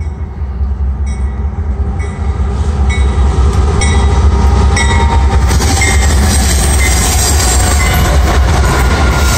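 Several diesel-electric freight locomotives on a CSX hopper train passing close: a deep engine rumble that grows louder over the first few seconds as the lead units arrive, then holds steady, with a regular clicking under it during the first half.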